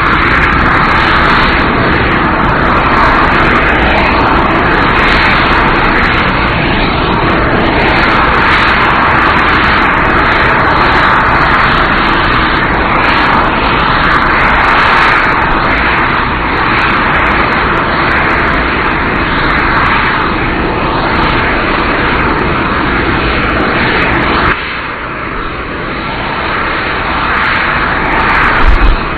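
Jet aircraft engines running steadily, a loud continuous rushing whine; the sound drops abruptly to a lower level about 25 seconds in.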